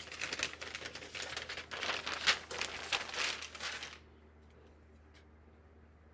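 Butcher paper and a laminating pouch rustling and crinkling as they are lifted off a heat press and handled, stopping about four seconds in.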